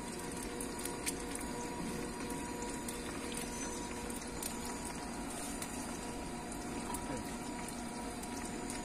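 Steady sizzle of food frying in a small pan of oil over a lit portable gas stove.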